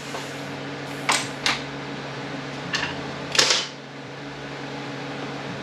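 Four sharp metal clinks, like tools and transmission parts being handled during teardown, over a steady background hum.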